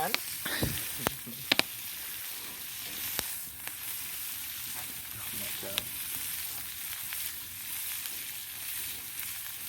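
Prawns sizzling in hot garlic butter over a wood fire: a steady frying hiss with a few sharp pops scattered through it.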